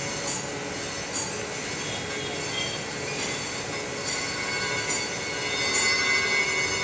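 Crankshaft grinding machine's abrasive wheel grinding an engine crankshaft journal down to size: a steady hissing screech with several high whining tones, getting louder near the end.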